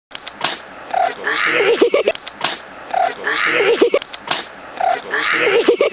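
A llama sneezing, a short hissing burst of breath, heard three times about two seconds apart as the same moment is replayed. Each sneeze is followed by a short wavering, pitched cry.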